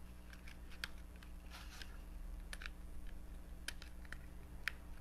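Faint, irregular light clicks and ticks as a fine pointed tool pokes the tiny leftover pieces out of a die-cut paper border, over a steady low hum.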